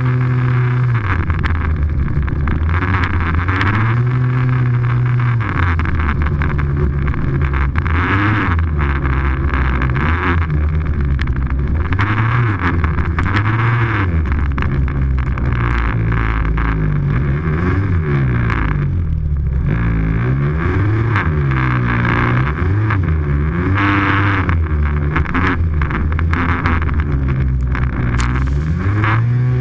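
Snowmobile engine running close to the microphone, its pitch rising and falling again and again as the throttle is opened and eased off. A rushing hiss swells and fades over it.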